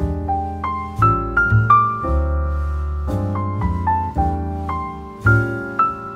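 Background piano music: a melody of separate notes over held low bass notes.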